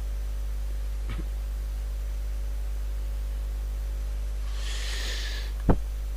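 Steady low electrical hum on the recording, with a brief breath-like hiss about four and a half seconds in and a short click just before the end.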